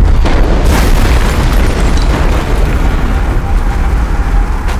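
An explosion: a sudden loud blast, followed by dense, continuous rumbling noise.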